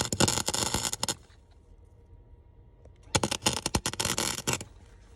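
Inexpensive welder laying two short welds on the A-pillar sheet metal, each a crackling, sputtering burst of about a second and a half, the second starting about three seconds in.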